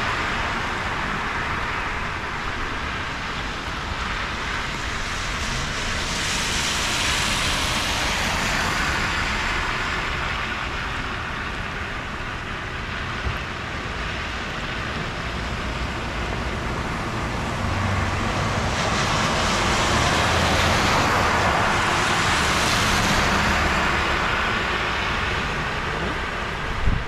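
Traffic on a flooded road: a steady hiss of tyres through standing water that swells twice as vehicles pass, first about six seconds in and again around twenty seconds in, with a low engine hum under the second pass.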